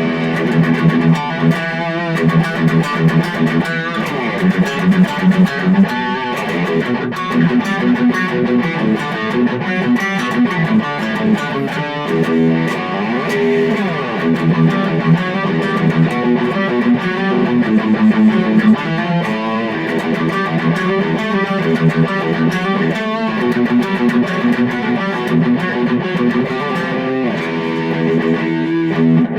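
Electric guitar played through a Boss Katana Mini amplifier on its high-gain channel: distorted chords and riffs with frequent picked attacks.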